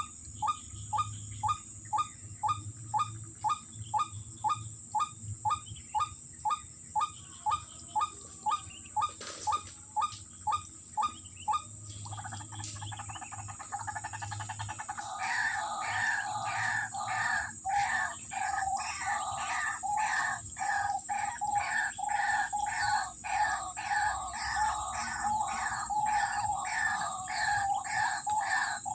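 White-breasted waterhen (ruak-ruak) calling: a regular, evenly spaced note about twice a second for the first dozen seconds, then from about twelve seconds in a faster, denser run of repeated calls.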